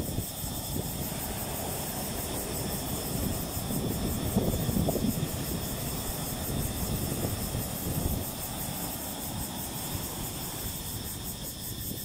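Ocean waves breaking and washing up over sand and around boulders at the water's edge: a steady low rushing rumble that swells in surges, loudest about four to five seconds in.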